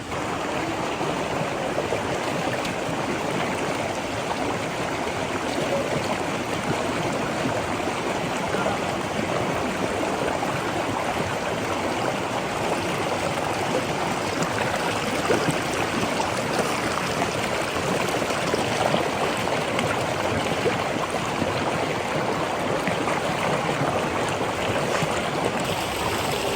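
Rushing water from a stream or waterfall, a steady, even rush with no break.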